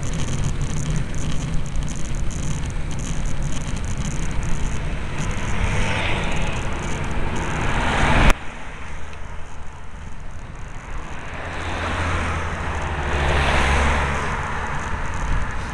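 Cars passing on the road over steady wind and road noise on a bicycle-mounted camera's microphone. One swells past and ends in a sharp click with a sudden drop in level about halfway through. Another swells past near the end with a deep engine hum.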